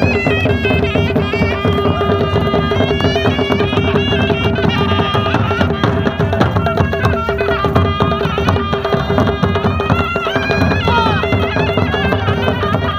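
Ghasiya baja folk band playing. A wind instrument carries a melody over a steady held note, and barrel drums beat a fast, dense rhythm.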